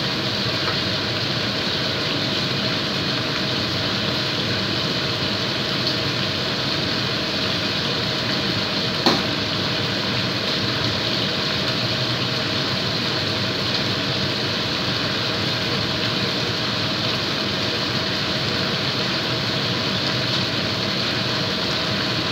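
Chicken curry sauce simmering in a wok over a gas burner, a steady bubbling and sizzling, with one sharp click about nine seconds in.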